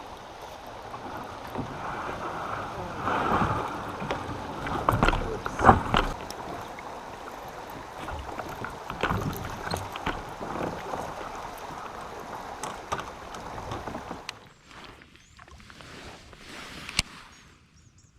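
A kayak being moved through the water: water splashing, with irregular paddle and hull knocks. The knocking eases off about fourteen seconds in, and a single sharp click comes near the end.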